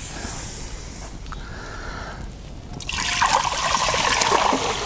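Water poured from a steel pot into a cast-iron Dutch oven, the splashing pour starting about three seconds in and running on; before it only a quieter steady noise.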